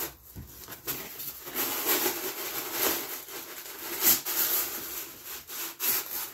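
Styrofoam packing block rubbing and scraping against a cardboard box as it is worked out by hand, with a string of short crackles; the sharpest comes about four seconds in.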